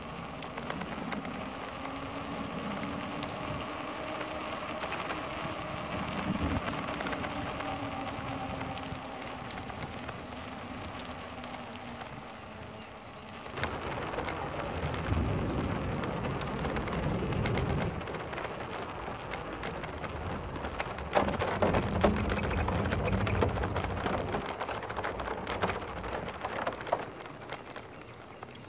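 Bicycle rolling along a paved trail with a steady tyre hum that slowly drops in pitch. About halfway through it runs onto wooden boardwalk planks, and the sound turns to a dense rattling clatter as the tyres cross the boards.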